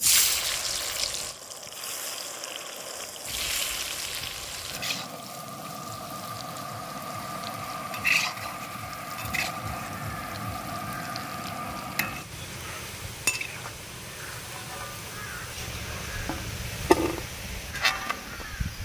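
Soya chunks deep-frying in hot oil in a kadai: a loud sizzle at the start that eases into a steady frying hiss, with a few scrapes and clinks of a spatula stirring them.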